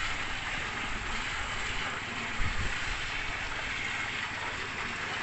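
Sandy tailings slurry rushing steadily down an earthen sluice channel, a continuous watery rush, with a brief low thump about two and a half seconds in.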